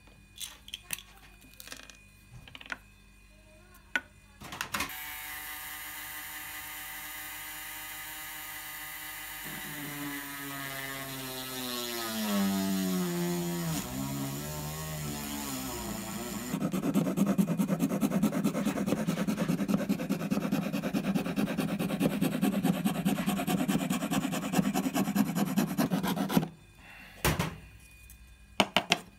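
Small handheld cordless drill boring a hole into a thin wooden camera lens board. After a few light clicks and taps it starts running about five seconds in, its pitch sagging and wavering as the bit bites into the wood, then runs louder and rougher before stopping a few seconds before the end, followed by more light clicks.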